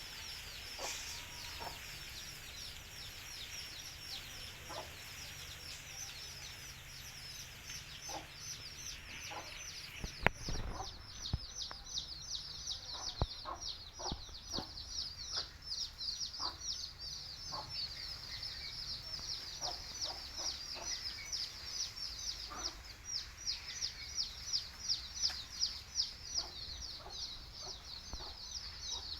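A flock of country chicks peeping continuously, many high, rapid, downward-sliding peeps overlapping, with a hen's short, lower clucks scattered through. A sharp knock about ten seconds in.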